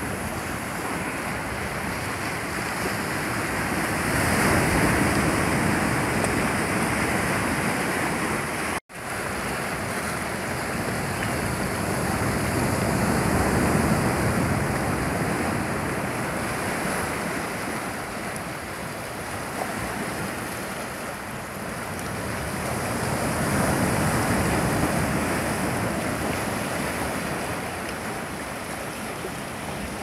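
Sea surf breaking and washing among large boulders on a rocky shore, a continuous rushing that swells louder about three times as sets of waves come in. The sound cuts out for an instant about nine seconds in.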